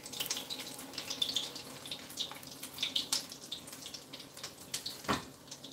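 Breadcrumb-coated rice balls (arancini) frying in shallow hot oil in a stainless pan, a steady crackle of many small pops, with one louder knock about five seconds in as they are turned with spatulas.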